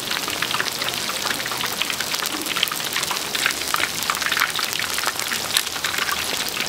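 Deep-frying oil crackling and popping around batter-coated handmade fritters (twigim), a dense, even patter of fine pops.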